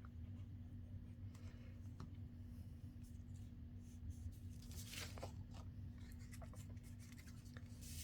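Paper and cardstock being handled: soft rustling and sliding with small taps, and a louder brush of paper about five seconds in, over a steady low hum.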